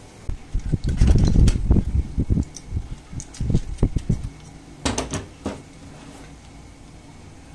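Bumps and knocks of handling at a kitchen counter, then a few sharp snips of kitchen scissors cutting open a seasoning packet about five seconds in.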